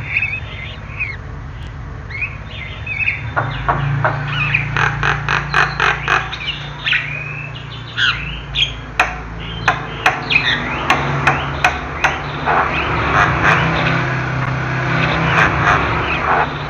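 Javan myna singing: a busy run of varied whistled and harsh chattering notes. From about halfway on it adds sharp clicking notes several times a second, over a steady low hum.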